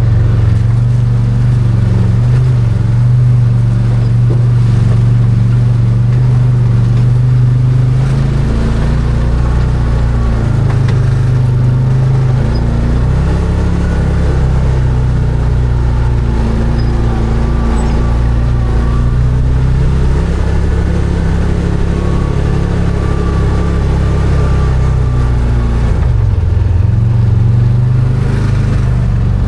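Arctic Cat Wildcat 1000 side-by-side's V-twin engine running under way at a steady pace, its pitch easing down and picking back up several times as the throttle changes.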